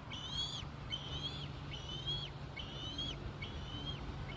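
Bald eagle calling: a steady series of high, thin piping notes, about two a second, each rising then levelling off. The speaker guesses the eagle wants a share of the prey the other one is eating. A steady low hum runs underneath.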